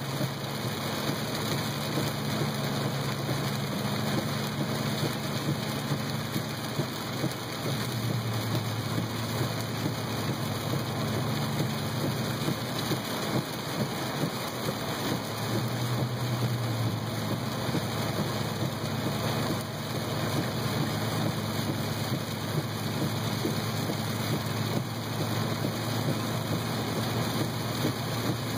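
Heavy rain pelting a moving car's roof and windshield, heard from inside the cabin as a steady, dense hiss, with a low hum beneath.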